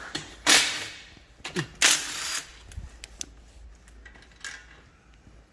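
Metal tools clattering and scraping against a steel differential housing: two loud, short clanks about a second and a half apart, then a few light clicks.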